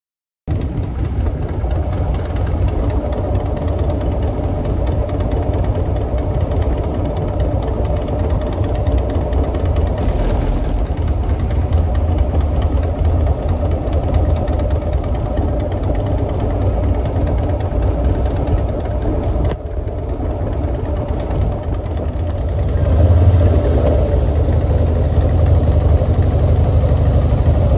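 Motorcycle engine running steadily while riding along a road, getting louder about three-quarters of the way through.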